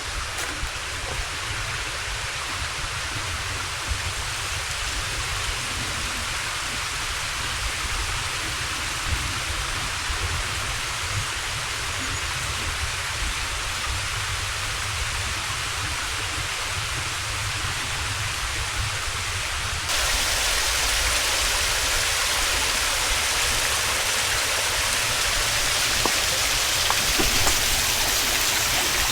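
Steady rushing water, as from a small waterfall or stream. It becomes suddenly louder and brighter about two-thirds of the way through.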